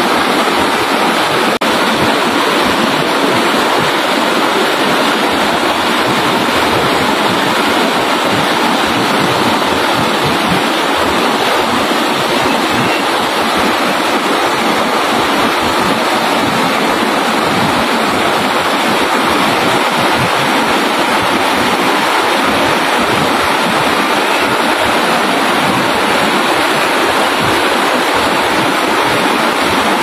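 Running water rushing in a steady, unbroken wash, like a stream or cascade.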